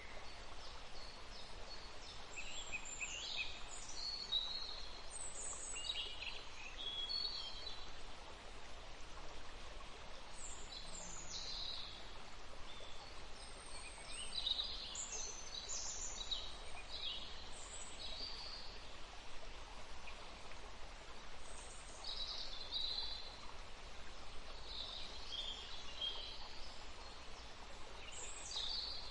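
Morning birdsong: several birds chirping and calling in short, overlapping phrases over a steady background hiss.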